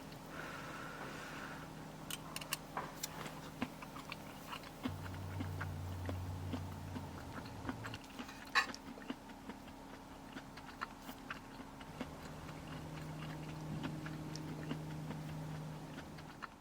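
Close-up chewing and crunching of food, with scattered small clicks, over a steady low hum.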